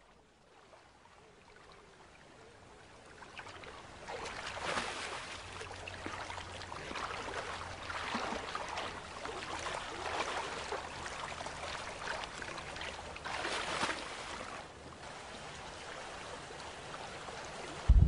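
Brown bear wading and bathing in a shallow, stony river: water sloshing and splashing unevenly. It starts faint, gets louder about four seconds in, and has a last burst of splashing shortly before the end.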